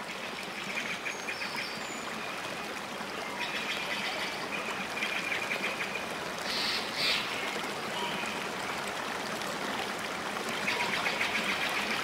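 Night-time outdoor ambience: repeated runs of fast, high-pitched trilling animal calls over a steady hiss.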